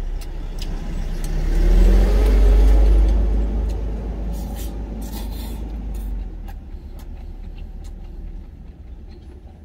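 Low vehicle engine rumble heard from inside a truck cab, swelling to its loudest about two seconds in with a slight rise in pitch, then fading over the next few seconds, as a heavy vehicle passes close by. Light clicks sound through it.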